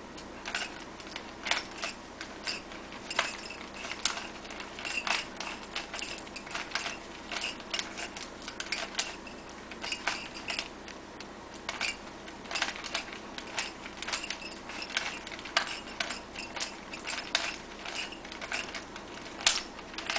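Rubik's Cube being twisted by hand: quick, irregular plastic clicks and clacks of its layers turning, a few a second, with one louder clack near the end.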